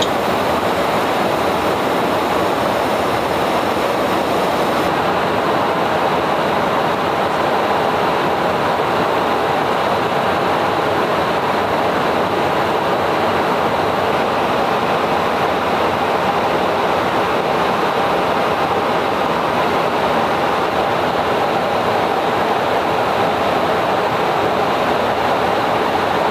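Steady in-flight cabin noise inside a KC-135R Stratotanker's boom operator station: a constant rush of airflow and jet engine noise, with a faint high steady whine.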